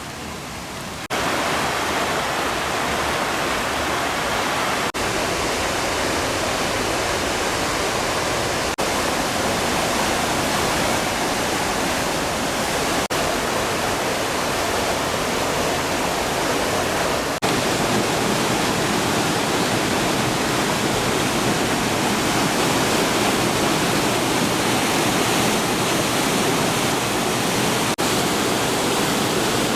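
Waterfall rushing: a loud, steady, dense hiss of falling water. It jumps louder about a second in, with slight shifts in level at a few points.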